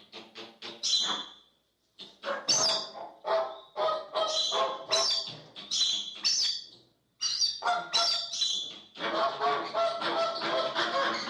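American flamingos calling: quick runs of short, repeated calls, breaking off briefly twice, about two seconds and seven seconds in.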